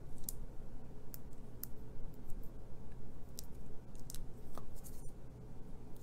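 Scattered small clicks and light rustles of fingers handling tiny punched paper leaves, over a faint steady low hum.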